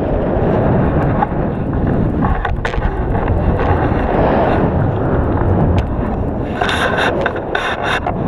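Wind buffeting the microphone of a camera mounted on a tandem paraglider in flight, a loud, steady rushing rumble. A run of sharp crackles comes near the end.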